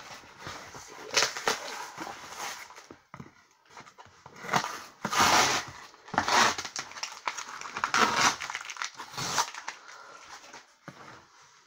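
Duct tape and painter's tape being cut with scissors and ripped off a cardboard shipping box, in about six separate noisy rips with quieter gaps between.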